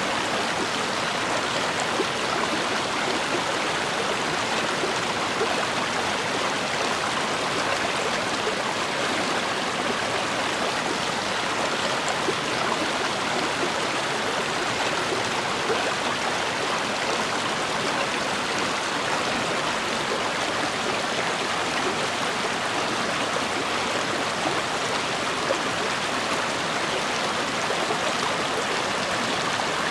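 A river or stream flowing over rocks: a steady rushing with small splashes and gurgles.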